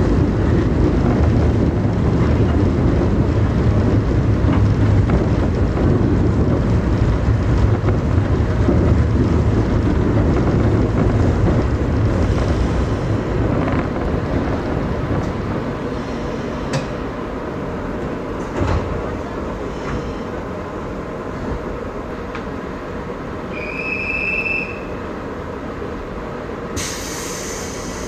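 Electric train's running rumble heard from inside the car, dying away as the train brakes and comes to a stop at a station platform. A short high squeal comes near the end of the braking, followed by a burst of air hiss as it stands.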